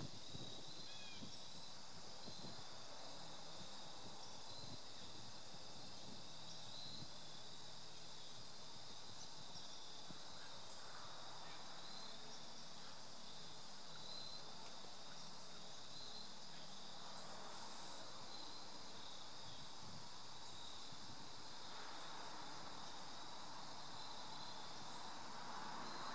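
Crickets trilling in a continuous high-pitched chorus. A faint rushing noise swells near the end.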